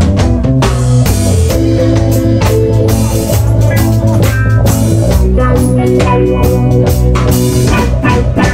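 Live rock band playing loud: electric guitars and bass guitar over a drum kit keeping a steady beat.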